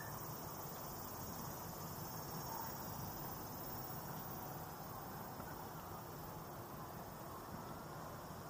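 Cicadas buzzing steadily in the trees, a continuous high-pitched drone, over a low, even background noise.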